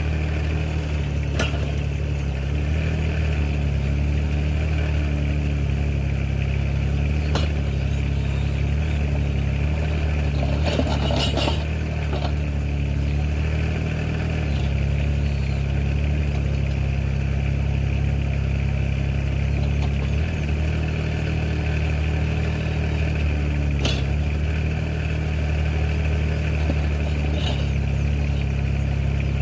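Mini excavator's engine running steadily at an even speed, with a few short knocks scattered through.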